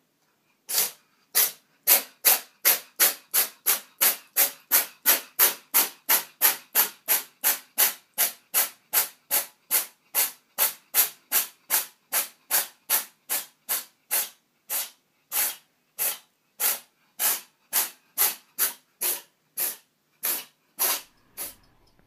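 A long run of short, sharp hissing bursts, about two a second, evenly spaced and slowing slightly towards the end, with silence between them.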